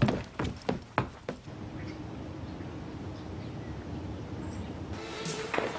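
A quick, irregular run of sharp clicks and knocks, then a steady low background hum.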